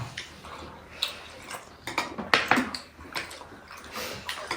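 Eating sounds: scattered short clicks and smacks of chewing and utensils, with a few louder slurps or smacks in the middle.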